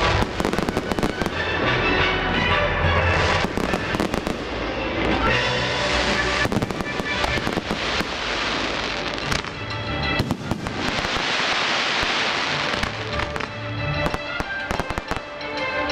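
Aerial firework shells bursting and crackling in quick succession throughout, with the display's music playing underneath.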